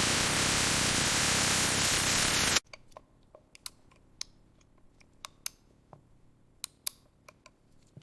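Loud, steady machine noise from the production line cuts off abruptly about two and a half seconds in. It is followed by a quiet stretch of scattered sharp clicks and ticks.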